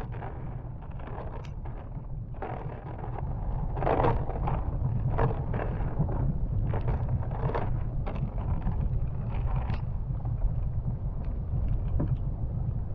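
Storm wind buffeting the microphone: a steady low rumble with irregular louder gusts.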